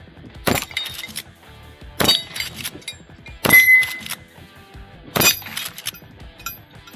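Henry Axe .410 lever-action fired four times, about one shot every second and a half, with Hornady Triple Defense .410 shells. The lever clicks as it is worked between shots, and the steel targets clang and ring when hit, one ringing clearly after the third shot.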